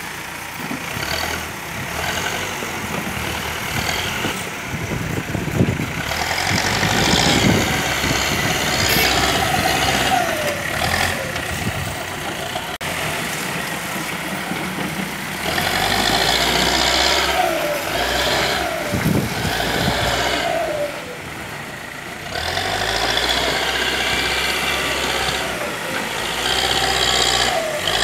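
Diesel engines of heavy construction machinery running steadily. In three spells of several seconds each, an engine revs up under load and then drops back.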